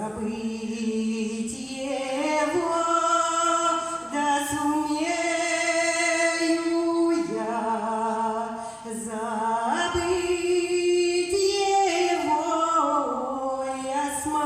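Women's voices singing unaccompanied in a Russian folk style, holding long notes that slide between pitches, with short breaths near 7 and 10 seconds in.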